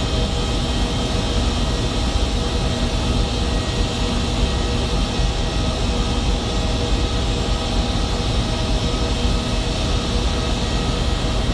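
Jet aircraft engines running steadily at an airport: a constant roar with a steady whine on top, neither rising nor falling.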